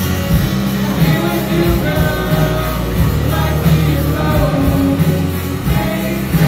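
Live rock band playing at full volume: electric guitar, bass guitar, drums and keyboard, with a lead singer's voice coming in and out over the band.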